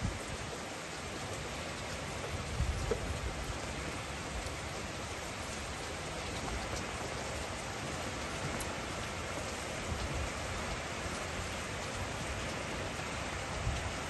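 Steady rain falling, an even hiss, with a few low thumps about two and a half seconds in, around ten seconds and near the end.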